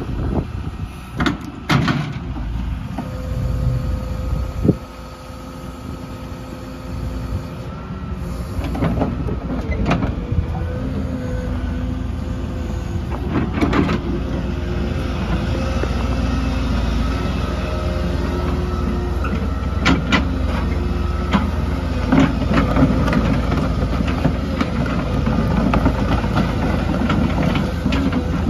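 2018 Volvo ECR145EL crawler excavator running, its diesel engine and hydraulics working as the boom and bucket are moved, with a steady whine over the engine and a few sharp knocks from the arm and bucket.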